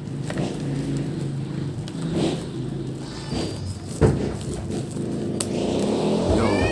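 Plastic bubble wrap crinkling and rustling as it is handled and snipped with scissors, with scattered sharp clicks and one loud thump about four seconds in, over a steady low hum.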